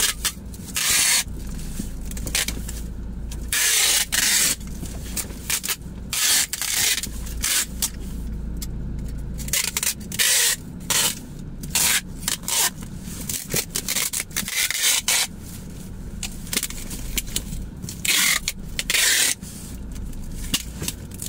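Packing tape pulled off a handheld tape dispenser in short screeching rips, over and over, as it is run along a cardboard box, with rubbing as the tape is pressed down between pulls.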